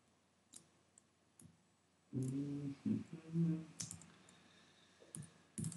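Scattered clicks of computer keys: a few single strokes, then a short cluster of them, with a man's low hum for about a second and a half in the middle.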